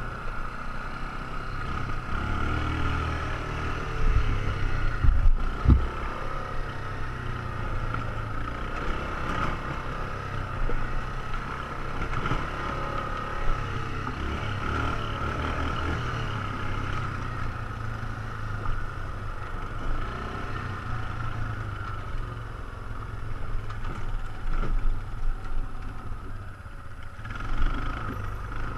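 ATV engine running steadily under way on a dirt trail, with a few heavy thumps about five seconds in.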